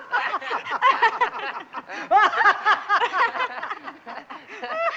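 Several people laughing together, short repeated bursts of voiced laughter with no music.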